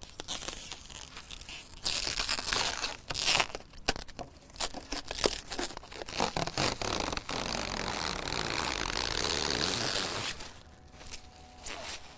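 Clear plastic wrapping being pulled off a compressor housing and crumpled by hand: irregular crinkling and tearing, with a steadier rustle for a few seconds past the middle, then quieter near the end.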